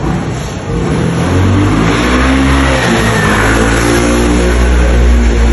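A motor vehicle engine running nearby and revving, loud and deep. It builds up about a second in and then holds steady.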